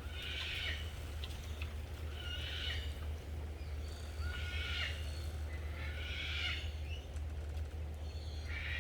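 An animal's short, rough high-pitched call, repeated five times about every two seconds, over a steady low hum.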